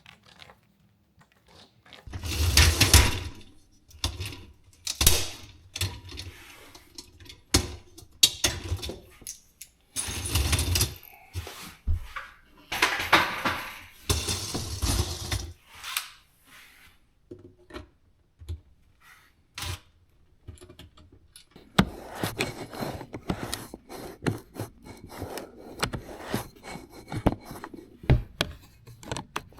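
Scrapes, knocks and rattles of a dishwasher's metal and plastic parts being handled and slid out of its cabinet opening, with a few long dragging scrapes and a run of quick clicks and rattles near the end.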